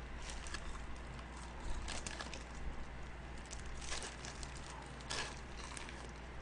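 Chewing and biting into crispy honey-glazed fried chicken close to the microphone: irregular crunches and mouth sounds, with sharper crunches about two, four and five seconds in.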